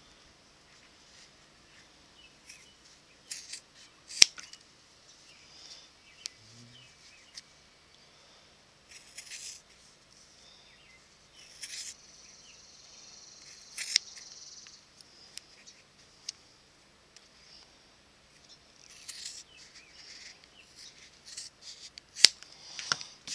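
Scissors cutting leather: irregular snips as a scrap of leather is trimmed square, with three sharp, louder clicks of the blades spread through.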